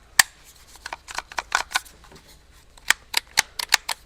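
Sharp clicks and snaps of plastic parts being pushed and fitted together on a pressure washer's hose reel: one loud snap at the start, a quick cluster of clicks about a second in, and about five more near the end.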